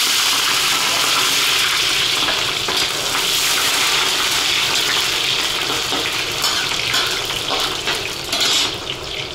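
Pieces of bone sizzling in hot oil in a large kazan as they are put in to fry, the first step of Uzbek plov. The sizzle is steady and dense, easing slightly over the last few seconds.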